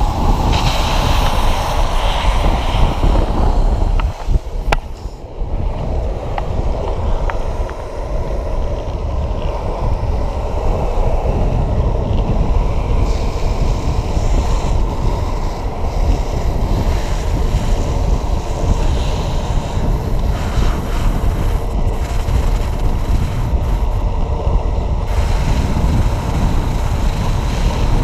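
Heavy wind buffeting a moving camera's microphone at downhill speed, over a steady rolling road roar, briefly easing about four seconds in.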